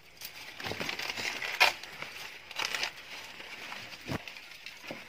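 Maize leaves and husks rustling as hands work through the corn plants, with several sharp cracks, the loudest about a second and a half in, as an ear of corn is snapped off the stalk.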